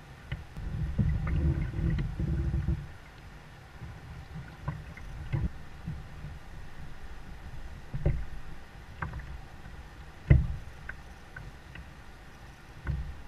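Hollow knocks and thumps on a plastic fishing kayak's hull, picked up through the hull, as the angler shifts his weight and gets to his feet, with a low rumble for a couple of seconds near the start. The loudest knock comes about ten seconds in.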